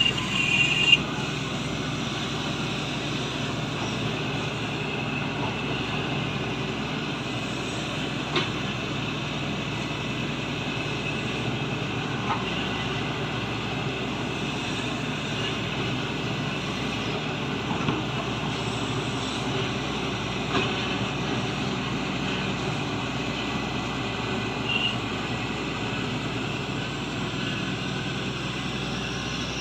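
Shantui excavator's diesel engine running steadily as it works, with a brief high squeal at the very start and a few short sharp knocks scattered through.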